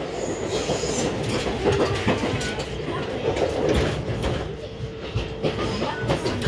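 Inside a JR West 223 series 2500 electric train running along the line: wheels clattering over rail joints, with a steady tone and rumble underneath.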